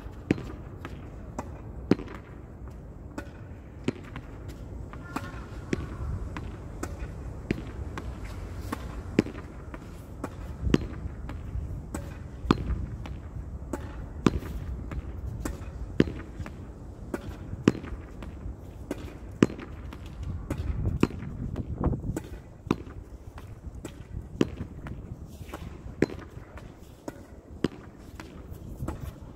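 A ball being hit against a wall in a steady rally. There is a sharp crack about every second and a half to two seconds, with fainter knocks in between.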